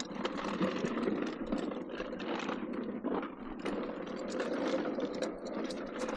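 Scrap metal being handled and loaded, with irregular light clanking and rattling of metal pieces throughout.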